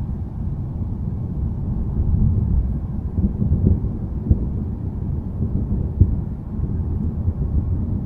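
Steady low rumbling of a thunderstorm, with two short knocks about four and six seconds in.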